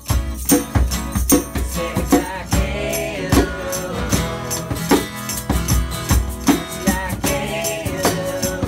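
Acoustic band playing a song live: strummed acoustic guitar, djembe hand drum beats and a shaken tambourine keeping a steady beat, with sung lines held over it twice.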